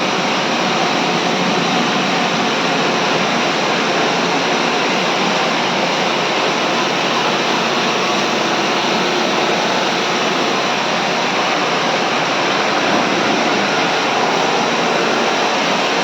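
Steady rushing hiss of a water jet spraying onto an air conditioner unit, switched on and off abruptly.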